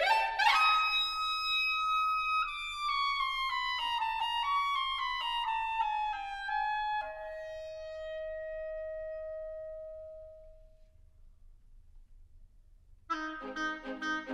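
Orchestral classical music: a solo woodwind plays a descending phrase and ends on a long held note that fades away. After a brief pause the orchestra comes back in with full chords near the end.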